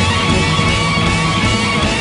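Rock music with distorted electric guitar and a steady beat.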